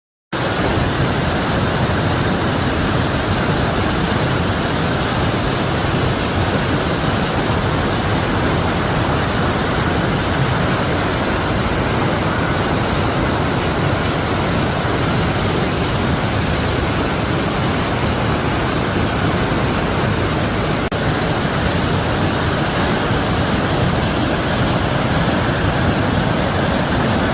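Waterfall: a steady, loud rush of falling water that starts abruptly and holds unchanged.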